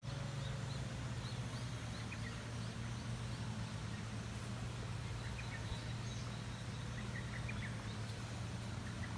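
Outdoor ambience: a steady low hum with small birds chirping faintly, short high chirps scattered throughout.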